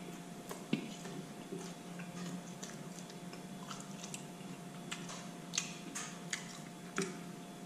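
A person chewing food close to the microphone, with irregular soft mouth clicks and smacks.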